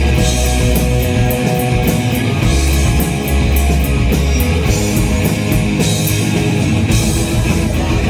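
Rock band playing live, with guitars, a heavy bass line and drums whose cymbal strikes repeat through most of the passage.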